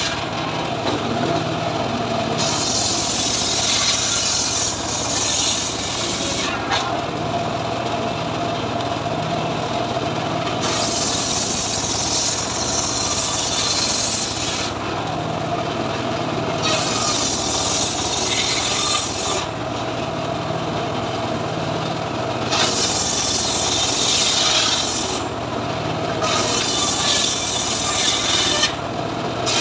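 Homemade circular saw bench ripping a lamtoro (leucaena) log into boards: the spinning blade rasps through the wood in stretches of a few seconds at a time, easing between passes, over the steady low hum of the saw's drive.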